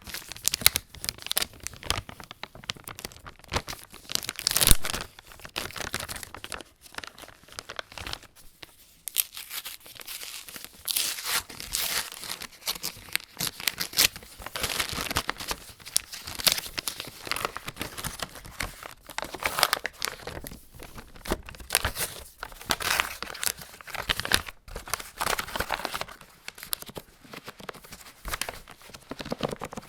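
Plastic packaging crinkling and tearing as a resealable cleansing-wipe bag is opened. About halfway through, this gives way to the wrapper of a ream of A4 paper being torn open and rustled.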